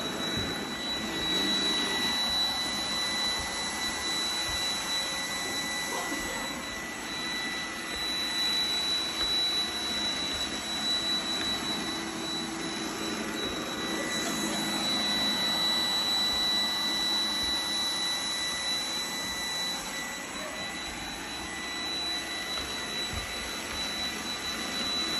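iRobot Roomba robot vacuum running: the steady whir of its fan and brushes with a constant high whine, swelling and dipping a little as it moves.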